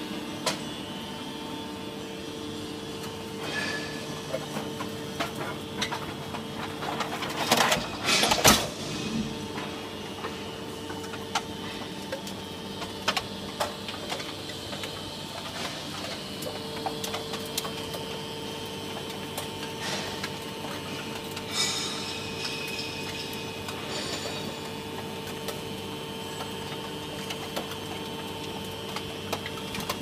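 ENERPAT two-ram hydraulic can baler's power unit running with a steady hum, with scattered metallic clicks and knocks and a loud burst of clanking about eight seconds in.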